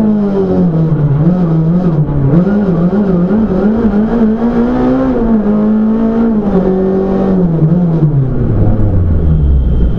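Race car engine heard from inside the cabin, running hard at high revs, with the pitch rising and falling quickly through the bends. About seven and a half seconds in, the revs fall away steadily to a low rumble.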